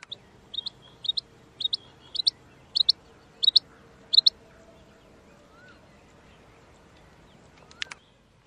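Female rain quail calling: a run of about seven sharp, high-pitched double notes, roughly one pair every 0.6 seconds, growing louder, followed by a short double click near the end.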